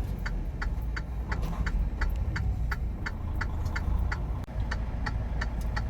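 Turn-signal indicator clicking steadily, about three clicks a second, over the low steady rumble of the semi truck's engine in the cab.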